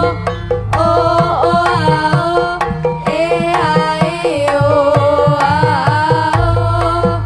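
Javanese jaranan dance music. Hand drums (kendang) play a busy rhythm under a wavering, ornamented melody line, and a deep gong note sounds near the end.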